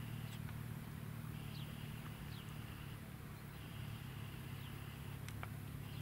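Faint outdoor ambience: a steady low rumble, with a few faint short falling chirps and two sharp clicks about five seconds in.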